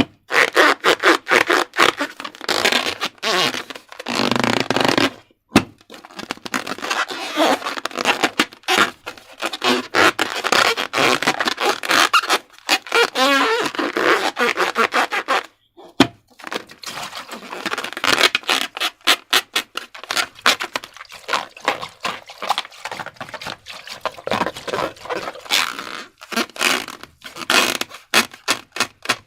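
Slime being squished and worked by hand: rapid wet crackling, clicking and squelching, with a couple of brief pauses.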